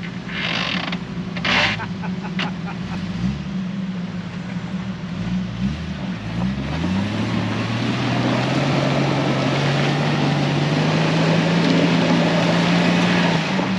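A vehicle engine running hard. Its pitch drops and climbs in several quick steps a few seconds in, then holds a steady, higher rev for about five seconds before cutting off abruptly near the end.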